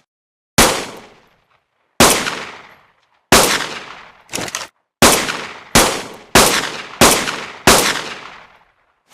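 A fabricated pistol gunshot sound effect fired repeatedly: eight sharp shots and one shorter, quieter one, each dying away in a ringing tail. The first shots come about a second and a half apart, and the last five come faster, about one every two-thirds of a second.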